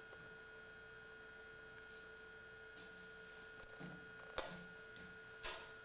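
Near silence: quiet room tone with a faint steady hum. A soft click comes a little past four seconds in, and a short breathy hiss near the end.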